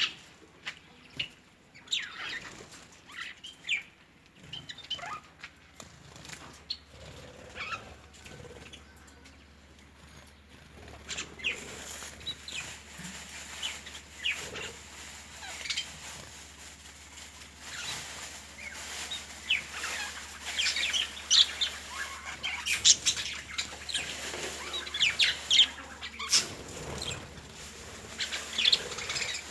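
Birds chirping and calling in many short notes, sparse at first and coming thicker and louder from about a third of the way in.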